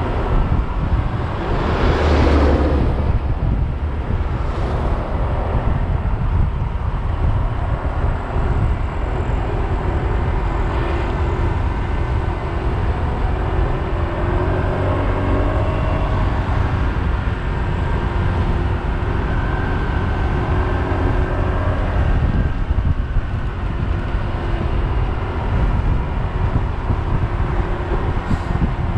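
Wind rushing over a moving camera's microphone at speed, a steady low rumble mixed with road noise, with a louder burst of rushing about two seconds in.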